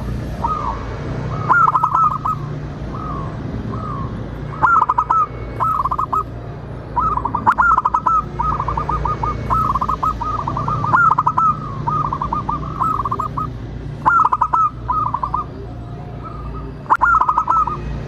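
Zebra dove calling: quick runs of short, clipped coos, repeated in bursts every second or so, over a low steady hum.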